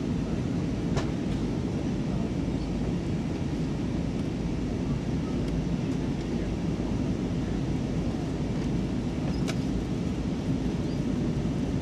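Steady cabin rumble of an Airbus A320-232 on descent, heard from inside the cabin: engine and airflow noise from its IAE V2500 engines, with a faint click about a second in and another near the end.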